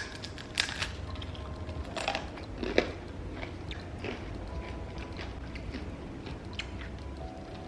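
Someone biting into and chewing a crisp home-baked quinoa cracker bread. There are a few sharp crunches in the first three seconds, then quieter, irregular chewing crunches.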